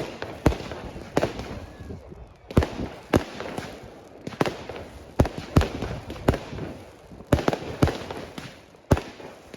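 Fireworks going off: about twenty sharp bangs at uneven spacing, some in quick pairs, with a short echo after the louder ones.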